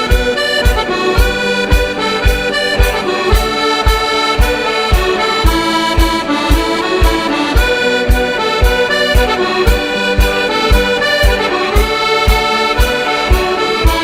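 Background music: an instrumental intro of a Scottish traditional song, a lively tune over a steady drum beat of about two beats a second.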